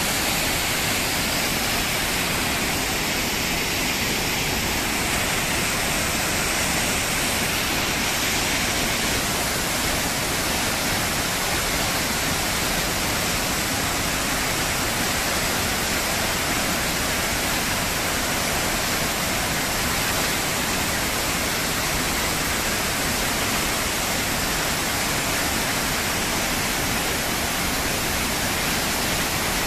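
Steady, loud rush of a waterfall, water pouring down and crashing into a pool.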